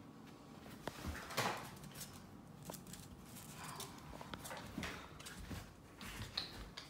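Faint, irregular clicks and scuffs of a puppy's claws and paws on a hard wooden floor as it walks about.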